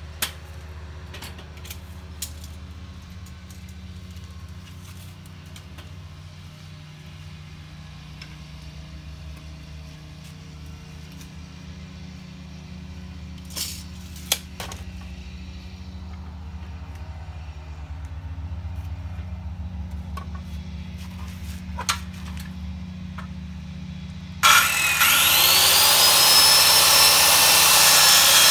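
Wooden boards knocking and clicking as they are handled, over a steady low engine hum. About 24 seconds in, a Skilsaw circular saw starts with a rising whine and cuts loudly into the wood.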